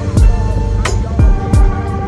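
Music with a heavy beat: deep kick drums that drop in pitch, sharp snare hits and held synth-like tones.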